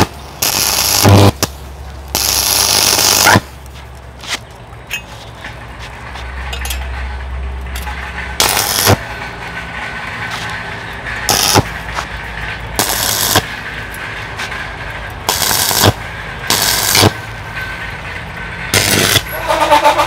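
A stick-welding arc is struck on steel again and again from a homemade welder built from a fridge compressor motor's stator. It gives about eight short crackling, sizzling bursts, the longest about a second and a half, with a steady low hum between them.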